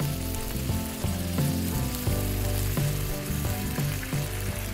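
Water poured from a jug into a hot nonstick kadai of masala paste that has been cooked until its oil separated, the paste sizzling in the pan. Soft instrumental music with held notes plays underneath.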